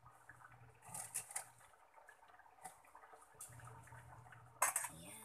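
Faint liquid sounds from a frying pan of simmering coconut milk as string beans are dropped in and moved about with a wooden spatula: brief soft splashes and clinks about a second in and again near the end.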